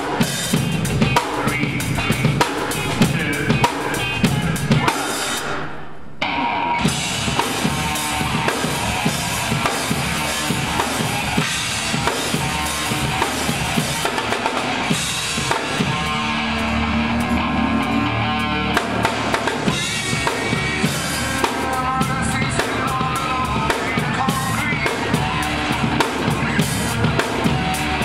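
Tama drum kit played in a fast, busy live groove: bass drum, snare and cymbals struck densely, with pitched backing music underneath. The sound fades briefly about six seconds in, then the full kit comes back in.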